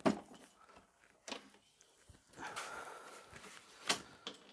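Knocks and clatter of a plastic-bodied battery lawn mower being handled and set back down on its wheels: a sharp knock at the start, another about a second later, a rattling stretch in the middle and a sharp click near the end.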